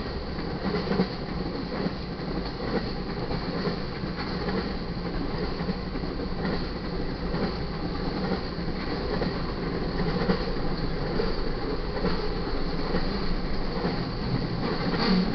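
Freight cars of a BNSF intermodal train rolling past at speed: a steady rumble with wheels clattering over the rail joints.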